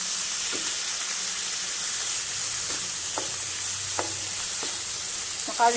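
Chicken strips with onion and ginger sizzling steadily in oil in a non-stick pan, with a few light taps of a wooden spatula as they are stirred.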